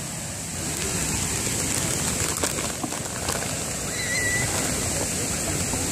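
Large park fountain spraying, a steady rush of falling water, with a few light rustles near the middle.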